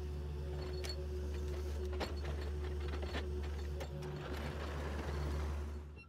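Yanmar mini excavator's diesel engine running steadily, with a few sharp clanks about a second apart.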